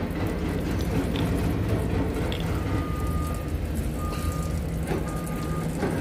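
Steady low rumble of heavy diesel machinery running, with a short high electronic warning beep starting about two and a half seconds in and repeating roughly once a second. A few faint clicks sound under it.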